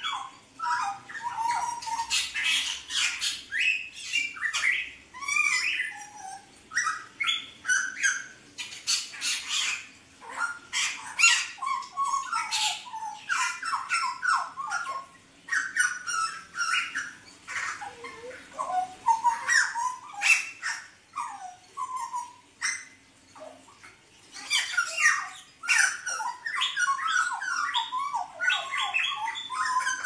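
Caged hooded butcherbird (jagal Papua) singing busily: a long run of short, varied chattering and whistled notes, broken by brief pauses.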